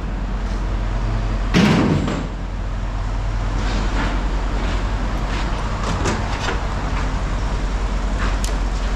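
An engine idling steadily, with one loud bang about a second and a half in and a few lighter knocks after it.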